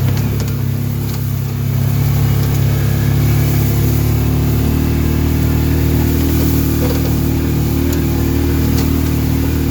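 Engine of a vehicle being driven across the farm, running steadily with a low hum, picking up a little about two seconds in.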